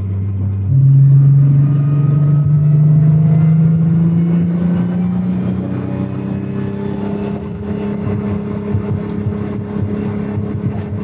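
Turbocharged VR6 engine of a Mk3 VW Golf heard from inside the cabin, pulling under acceleration: the note jumps up and gets louder about a second in, climbs steadily in pitch for several seconds, then holds a steady higher drone.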